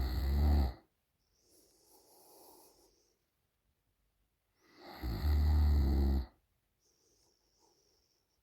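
A sleeping woman snoring: two loud, deep, rattling snores about five seconds apart, each followed by a much softer breath. The first snore is already under way and ends just under a second in.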